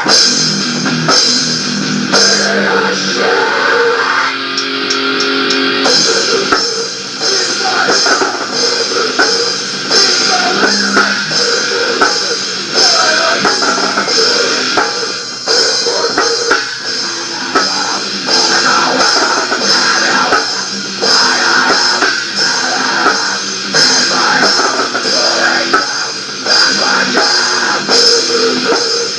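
Rock band's demo recording playing loudly: electric guitar over a drum kit beating steadily, with almost no deep bass.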